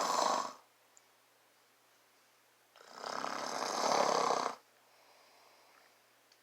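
A man snoring in his sleep: the end of one snore right at the start, then one long snore about three seconds in that lasts nearly two seconds, trailing into a faint breath out.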